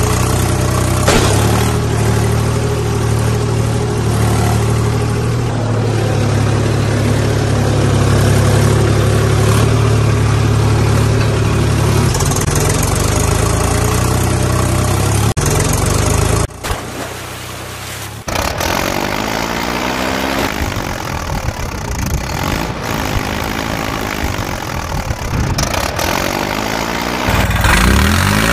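Tractor engine running steadily with a deep low hum. About sixteen seconds in it drops away briefly, then runs again with a repeated sweeping tone.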